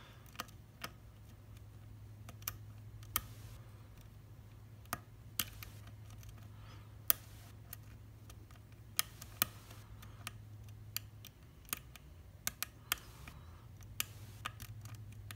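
Sharp, irregular clicks from the pin stack of an Abus C73 padlock being single-pin picked, as pins set and the pick works through the warding, over a steady low hum. Pins are giving more than one click each, which the picker puts down to serrated pins.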